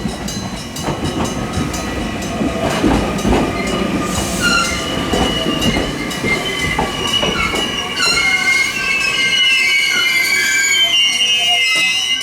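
Kumamoto Electric Railway train passing over a level crossing: a low rumble with clacks over the rail joints, then the wheels squealing in high, wavering tones from about four seconds in. Under it the crossing's electric gong bell keeps striking in a steady rapid beat.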